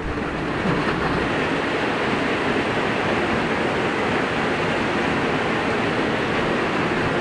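Heavy rain falling onto a pond's water surface: a steady, even hiss of many drops.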